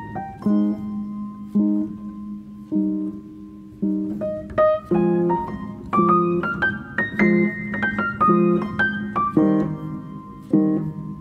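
Background music of struck, decaying keyboard chords about once a second, with a melody climbing higher in the middle.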